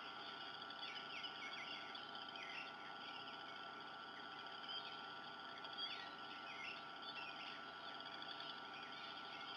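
Faint bird chirps and twitters: many short, high, varied notes throughout, over a steady faint tone.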